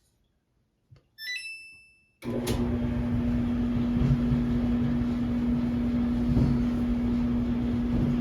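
A click, then a Samsung dryer's control panel beeps, and about two seconds in the dryer starts and runs loudly and steadily with a constant low hum: the newly replaced drive motor turning the drum.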